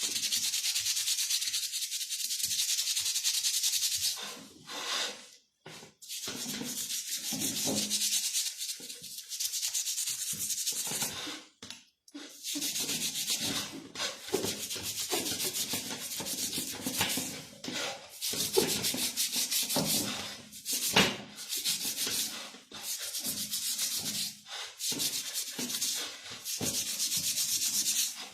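Hand scrubbing and rubbing on a CG 125 motorcycle's rear hub while it is cleaned and polished. Runs of fast strokes are broken by short pauses every few seconds.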